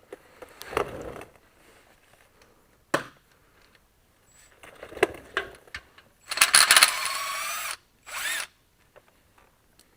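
A handheld power tool spins up and runs for about a second and a half, then gives a second short burst, backing out bolts as the oil pan comes off a Farmall H engine. Before it come a few clunks of tools being handled.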